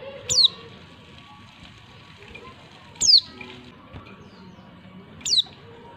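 A female white-eye (pleci) giving three short, high calls about two and a half seconds apart, each sweeping quickly down in pitch. This is the female call used to provoke male pleci into singing.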